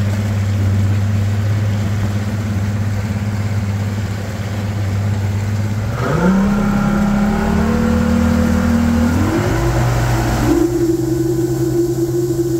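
Evinrude G2 200 HP V6 two-stroke outboard running steadily at low speed, then throttled up about six seconds in: the engine note rises sharply, climbs, and steps up again near ten seconds as the boat accelerates, settling at a higher steady pitch.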